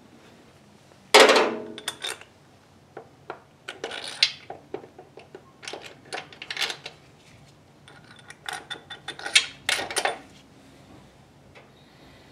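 Metal clinks and knocks as a power steering pump, its bolts and washers are handled and fitted to the engine's front accessory bracket. One loud clank comes about a second in, then many lighter clicks and clinks.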